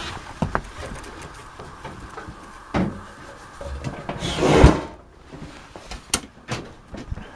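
Scattered knocks and rubbing as the panels of a Maytag range are handled, with a louder sliding scrape about four seconds in that ends in a sharp thump.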